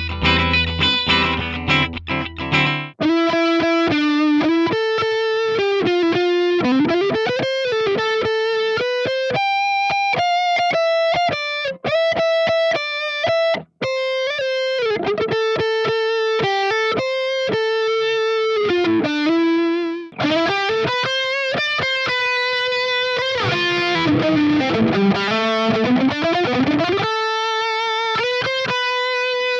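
Sterling by Music Man Valentine electric guitar played through an amp: about three seconds of quick chords, then a single-note lead melody with notes bending up and down and long held notes. Near the end a held note dips down in pitch and comes back up.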